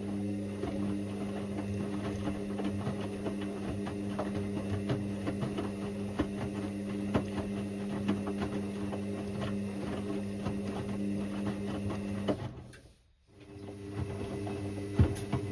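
Indesit IWC6165 washing machine's drum motor humming as it turns the drum during the wash, with a steady patter of small ticks and knocks over it. About three-quarters of the way through it stops for roughly a second, then starts again, the usual pause as the wash drum changes direction.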